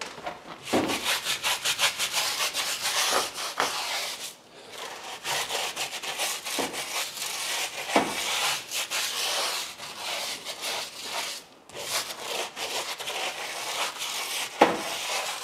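Stiff-bristled tire brush scrubbing the rubber sidewall of a car tire lathered with foaming wheel cleaner, in rapid back-and-forth strokes, pausing briefly about a third of the way in and again near three-quarters through.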